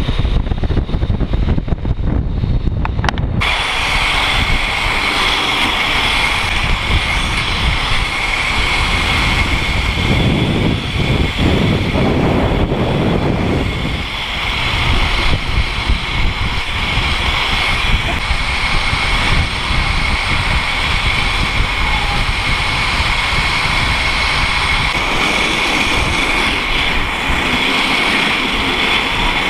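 Wind buffeting the microphone and inline skate wheels rolling fast on asphalt during a downhill run, a continuous loud rush with a steady high whine joining in about three seconds in.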